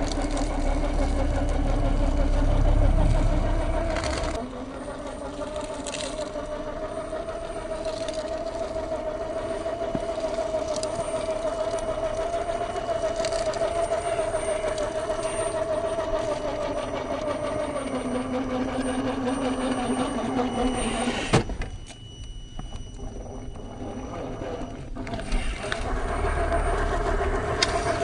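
1/10-scale Lesu Unimog 406 RC truck running off-road, a steady motor and drivetrain whine that changes pitch a few times. A sharp click about three-quarters of the way through, then the sound drops off for a few seconds before it comes back.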